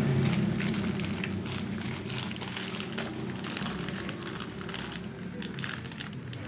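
Clear plastic toy packaging crinkling and rustling as it is handled, with many small irregular crackles.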